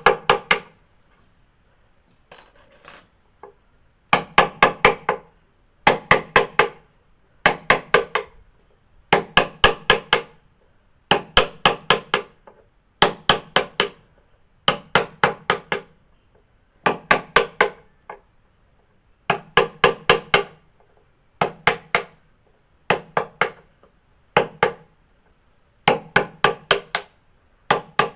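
Hammer striking in quick runs of four or five ringing blows, a run about every two seconds, as in hand woodworking.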